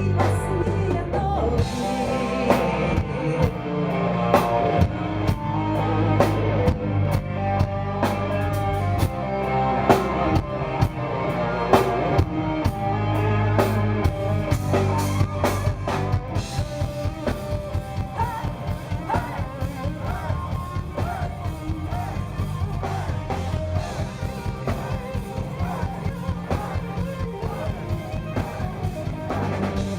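A rock band playing live, loud, with drum kit and guitars. From about halfway the drums settle into a quick, even beat.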